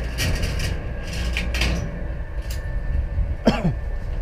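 Wind rumbling on the microphone of a helmet-mounted camera, with a few short clicks and rustles of handling and gear, and a brief falling squeak about three and a half seconds in.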